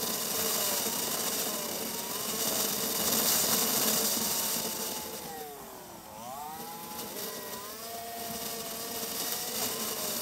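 Motorcycle engine running under way, with wind rushing over the camera. The engine pitch falls to a low point about six seconds in as the bike slows, and the wind eases, then the pitch climbs again as it picks up speed.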